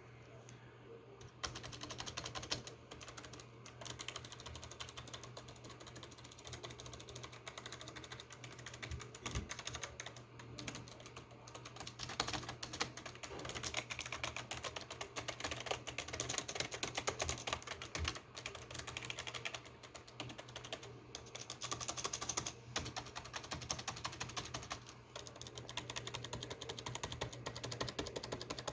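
Fast, continuous typing on a Razer Ornata V2's mecha-membrane keys: dense, rapid clicky keystrokes that start about a second and a half in, over a steady low hum.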